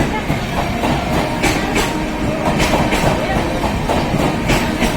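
Passenger express train's coaches running past at speed, a steady rumble with wheels clicking over rail joints, the clicks often coming in quick pairs.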